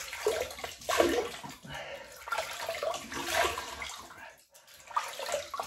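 Water splashed onto the face by hand at a basin, in a run of irregular splashes with a short lull about four and a half seconds in.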